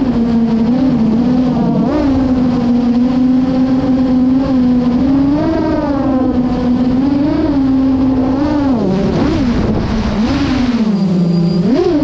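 8-inch FPV freestyle quadcopter on two-bladed MasterAirscrew 8x4.5 props and Hyperlite 2807.5 1322 kv motors, heard from its onboard GoPro: a steady buzzing prop drone whose pitch swells and dips with each throttle change. The pitch sags low about ten to eleven seconds in, then jumps up sharply with a throttle punch near the end.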